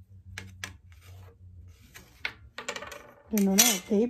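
A few sharp light clicks and small clattering sounds, then a person's voice near the end, which is the loudest sound.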